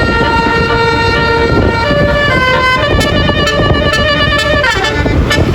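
Basuri telolet musical horn on a Sanjaya Trans bus playing a tune of held notes that step up and down, with a falling pitch glide near the end. Loud road and engine noise runs underneath.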